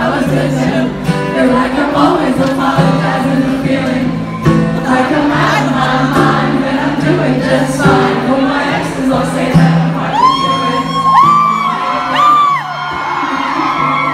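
Live pop performance: a woman singing into a microphone over acoustic guitar, with crowd noise and shouts. From about ten seconds in, a voice holds several long, high notes.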